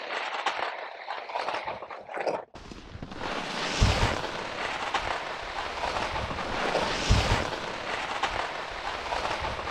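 Skis sliding and scraping over a groomed piste, with wind rushing over the microphone; the noise swells in two stronger surges partway through.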